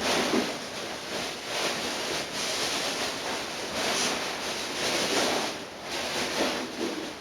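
Rustling of packaging and clutter being handled and cleared away, a continuous noise that swells and fades every second or so.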